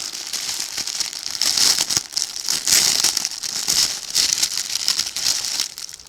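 Plastic packaging crinkling and rustling as a jacket is unwrapped and opened up, dense and continuous, loudest about two seconds in and dying away near the end.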